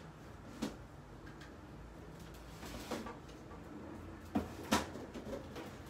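A few light knocks and clicks of small objects being handled on a table, the loudest two close together about four and a half seconds in.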